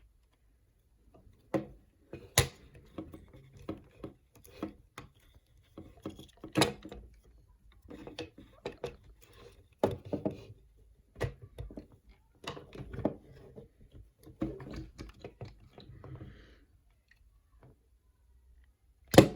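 Hard plastic parts of a Transformers Commander-class Optimus Prime figure being handled and shifted, with irregular clicks and knocks as joints and panels are moved and snapped; three sharper knocks stand out, the loudest near the end.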